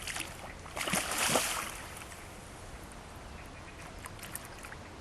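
Water splashing for about half a second, about a second in, over a steady low wash of water.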